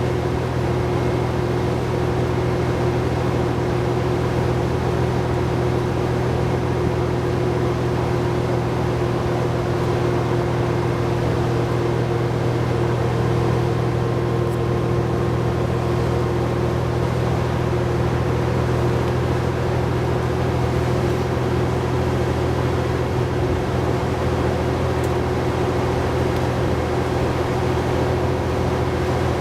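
Cummins ISL9 diesel engine of a New Flyer D60LFR articulated bus running at steady revs, heard from on board: a constant low drone with a steady higher hum over road and engine noise, unchanging throughout.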